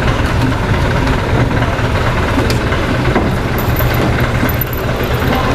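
Vintage army truck's engine idling steadily, a low, even hum, with one sharp knock about two and a half seconds in.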